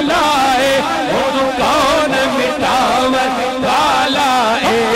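A man's voice chanting a naat in a slow, ornamented melody, with long held notes that waver and turn.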